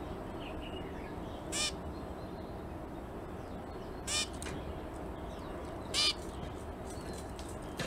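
Zebra finch giving three loud, short nasal calls about two seconds apart, over a steady low background noise.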